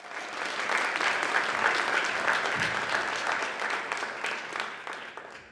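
Audience applauding, swelling in over the first second and dying away near the end.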